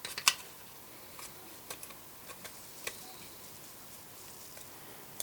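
Quiet, scattered clicks and taps of small plastic parts being handled and fitted together while reassembling a Sony SRF-59 Walkman radio, the sharpest just after the start.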